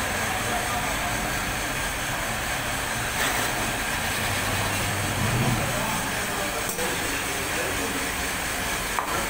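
Valve seat cutting machine running, its spindle turning a cutter in a cylinder head's valve seat, as a steady machine noise with a low hum that swells for a moment about five seconds in.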